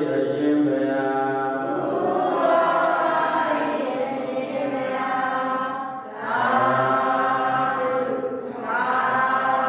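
Buddhist devotional chanting: voices chanting long, held phrases, with short breaks about six and eight and a half seconds in.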